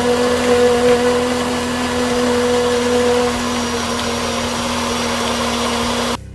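Electric countertop blender running at a steady speed, blending a thick fried-onion and yogurt mixture: a steady motor whine over the churning, cutting off suddenly near the end.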